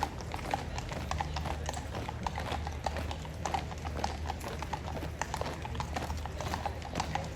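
Horses' hooves clip-clopping on a paved road, many irregular overlapping hoof strikes from several horses at a walk, over a steady low hum.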